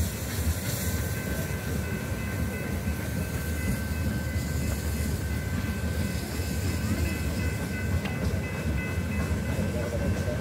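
Wooden heritage passenger carriages of a steam train rolling past on the rails: a steady low rumble of wheels on track, with a faint steady high tone above it from about a second in.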